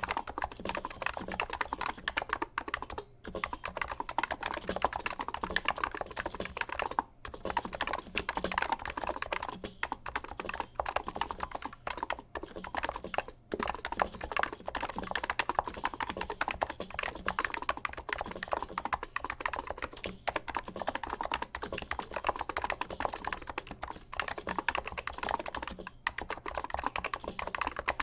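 Fast, continuous typing on a Niz keyboard with 55g electrostatic capacitive switches: a dense run of key strokes, with a few short pauses. A slight scratchiness of the Niz switches comes through in the sound.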